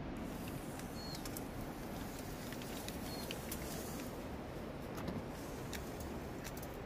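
Steady low outdoor background noise with scattered light clicks and ticks as a steel tape measure is held against a stone wall. Two short high chirps come about a second in and about three seconds in.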